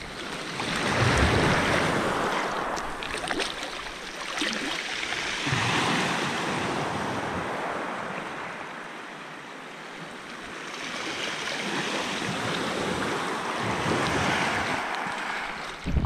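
Small Black Sea waves washing up and drawing back over a pebble beach, swelling and easing about three times in slow surges.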